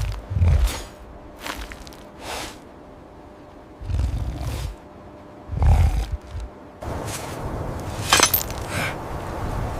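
Sound-effects track of a cinematic fight: deep low booms, several sharp whooshing hits and a loud crack about 8 seconds in, over a low rumbling bed that swells near the end.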